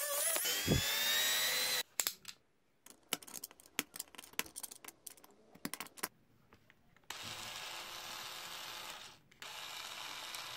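A rotary tool with a cutting disc grinding into the screwdriver's plastic housing, its whine stopping about two seconds in. Then a run of sharp scrapes and clicks as a blade trims the plastic, followed by the cordless screwdriver's small DC motor and gearbox running in two steady bursts of about two seconds each, with a short pause between.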